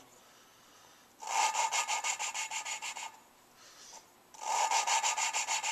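A new valve being lapped into its seat in a Suzuki G16A 16-valve cylinder head: a suction-cup lapping stick spun rapidly back and forth between the palms grinds the valve against the seat with grinding compound, giving two bouts of fast gritty rubbing with a short pause between. The grinding, scratching sound at the start of each bout shows the valve and seat are not yet fully lapped in.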